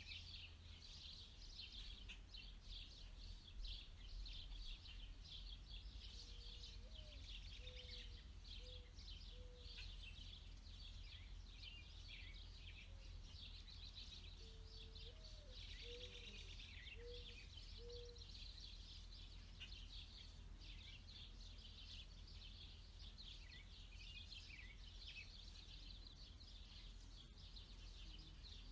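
Faint outdoor ambience of continuous high-pitched bird chirping and trilling. Two short runs of soft, low, short notes come about 7 and 15 seconds in.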